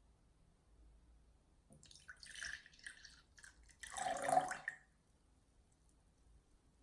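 Liquid trickling and dripping, then poured briefly into a cup about four seconds in, the loudest moment.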